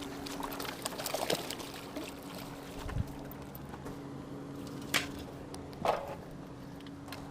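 Water trickling and splashing around a hooked fish being played in, with a few sharp clicks and knocks. A low steady hum comes and goes.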